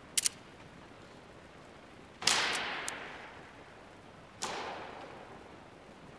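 Sharp cracks of a rope whip of cords, lashed by hand and echoing through a large hall. There are two quick light snaps at the start, a loud crack about two seconds in with two smaller ticks after it, and a second, softer crack about four and a half seconds in.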